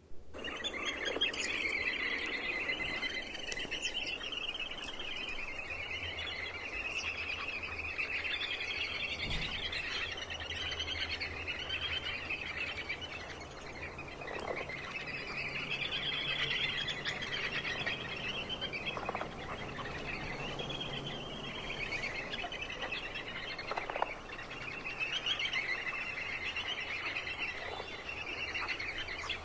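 Birds calling continuously: a dense, rapidly warbling chatter that swells and fades in waves, with a few short, sharper calls standing out now and then.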